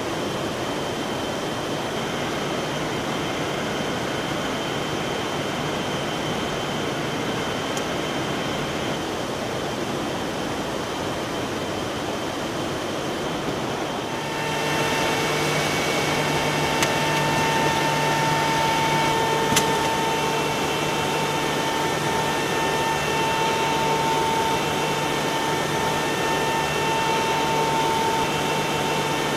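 Biesse Stream edgebanding machine running: a steady hiss of air and motor noise. About halfway through it grows louder, with a steady whine and a low hum added and a couple of brief ticks.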